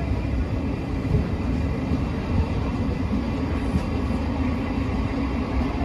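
Steady rumble of an old-style passenger coach rolling along the track, heard from inside the car.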